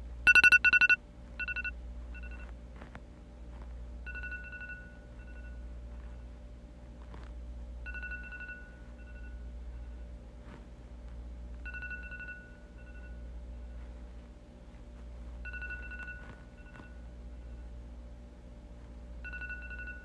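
iPhone Clock app alarm ringing. It opens with a loud burst of beeps. Then a group of beeps, one longer beep followed by shorter, fading ones, repeats about every four seconds.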